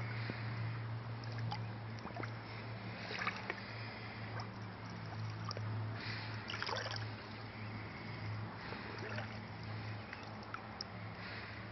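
Shallow water sloshing and splashing as hands hold a small pike under the surface to revive it before release, with a few louder splashes about three and seven seconds in. A steady low hum runs underneath.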